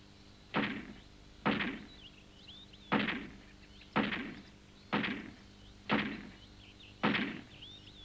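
Heavy wooden thuds, seven of them at about one a second, each dying away quickly, with faint high chirps between them.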